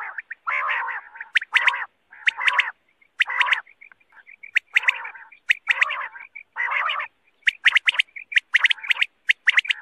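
Quails calling over and over, sharp quick whistled notes in twos and threes alternating with rasping calls, used as a caller sound to lure wild quail.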